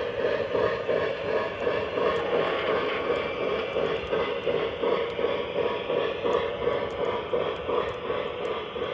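O gauge three-rail model train, a Legacy 0-6-0 steam locomotive pulling freight cars, running along the track: a steady rolling rumble with faint small clicks.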